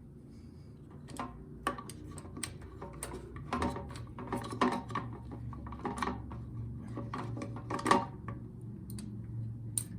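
Small metal clinks and taps of hand tools and fasteners as a carburetor is refitted on a small engine, irregular and scattered throughout, over a low steady hum.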